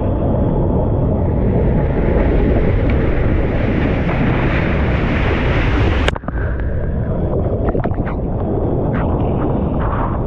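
Wind and rushing water buffeting a GoPro's microphone while surfing: a loud, steady rush that grows brighter, then breaks off sharply about six seconds in to a duller rush with scattered crackles and pops.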